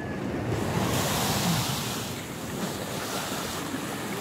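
Sea waves surging and washing against a seawall, with wind buffeting the microphone.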